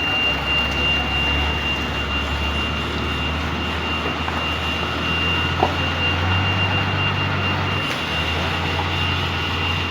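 A heavy vehicle's engine running with a steady low rumble, which shifts slightly about two-thirds of the way in. A thin, steady high-pitched tone sounds over it throughout, and there is one brief click a little past the middle.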